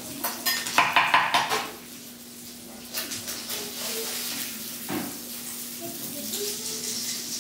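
Dishes and utensils clatter against each other, loudest about a second in. Then a metal spatula scrapes and knocks against a frying pan as fried crab cakes are lifted out, with the hot pan still sizzling.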